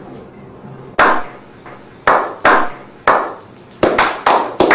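Slow clap: single loud hand claps about a second apart that speed up near the end as the others join in.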